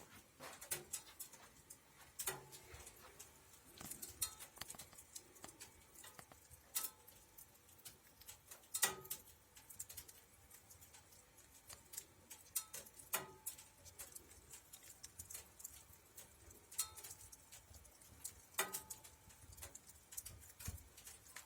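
Wood fire crackling and popping inside a wood-burning cook stove: irregular sharp pops and snaps, a few louder ones with a brief ring after them.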